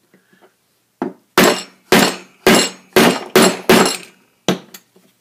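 Hammer blows on a tool wedged into a metal flexible-conduit end connector, knocking the cast fitting loose from its steel part: about eight sharp metallic strikes, roughly two a second, with a quick pair near the end.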